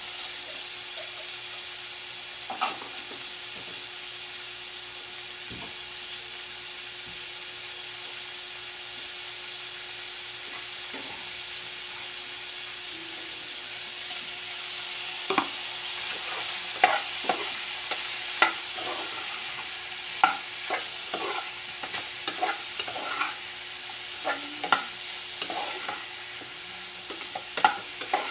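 Pork pieces sizzling as they fry in a metal pot, with a spatula scraping and knocking against the pot as they are stirred. The knocks come often in the second half.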